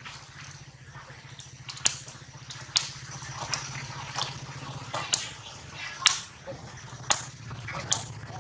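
Sharp clicks and short squeaks, about one a second, from a baby monkey gripping and mouthing an inflated rubber balloon, over a steady low hum.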